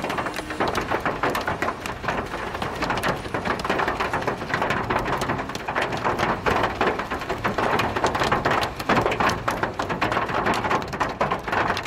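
Hailstorm with heavy rain: hailstones and rain pelting the road and parked cars in a dense, unbroken run of sharp hits.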